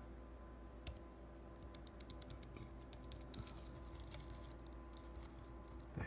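Keys of an Apple Magic Keyboard being pressed by a finger: one key click about a second in, then a run of quick, quiet key clicks. The keys are low-travel with a clicky feel, much like a MacBook's.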